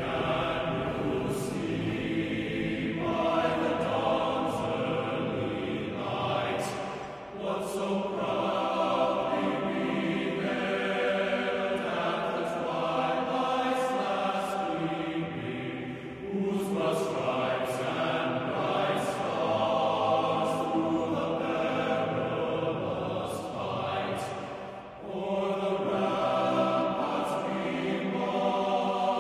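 A choir singing slow, held chords in long phrases, each phrase ending in a brief dip before the next begins.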